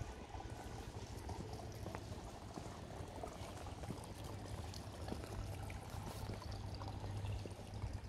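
Faint, steady trickle of pool water, over a low rumble.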